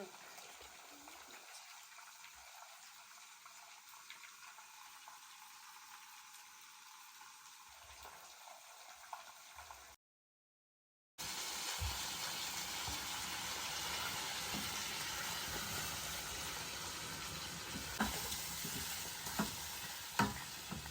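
Food sizzling in hot oil: a faint, steady hiss at first, then a louder sizzle after a brief silence, with a few sharp pops near the end.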